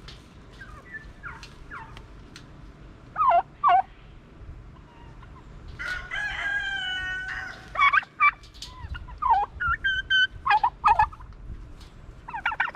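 A rooster crows once, a held call of about a second and a half starting about six seconds in. Around it, poultry give loud, short calls that fall in pitch: a pair about three seconds in, then a run of them in the second half.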